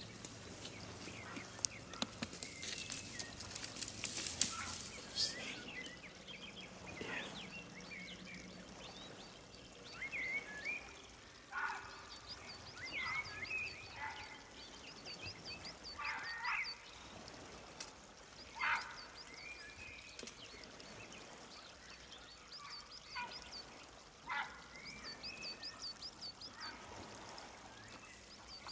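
Dry brush rustling and crackling for the first few seconds, then geese honking faintly every few seconds, with a faint high chirping repeating in the background.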